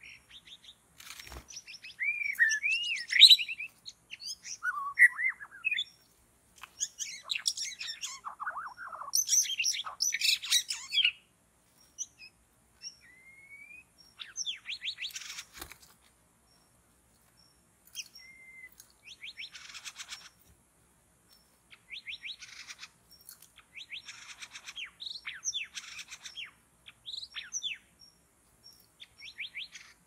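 White-rumped shama singing: a rich, varied run of whistled phrases with quick rising and falling notes, in bursts separated by short pauses. The song is loudest in the first ten seconds, and later phrases are quicker, repeated notes. There are a couple of sharp clicks, one near the start and one about halfway through.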